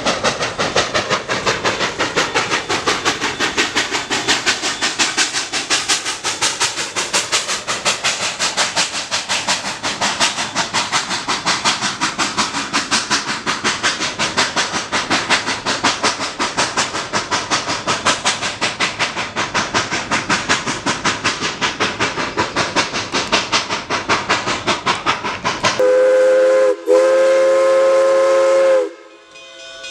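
Narrow-gauge steam locomotive working, its exhaust chuffing in a fast, even beat. Near the end its chime whistle sounds a short blast and then a longer one.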